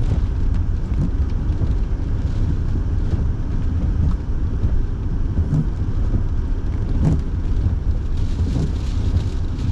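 Steady low rumble of a car being driven, heard from inside the cabin, with the heater fan running and light scattered ticks of rain hitting the car.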